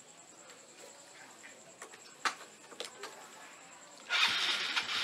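Small motor scooter engine starting about four seconds in and settling into a running idle. Before it, a few faint clicks and knocks over a thin, steady, high insect trill.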